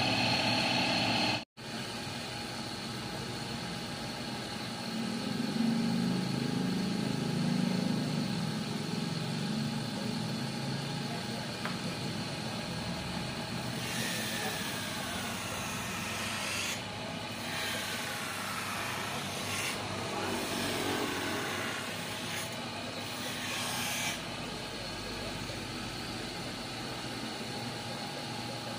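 Optical lens hand-edger motor running steadily with its grinding wheel spinning. About halfway through, for some ten seconds, a spectacle lens edge is pressed against the wheel to smooth it, adding a grinding sound whose pitch rises and falls.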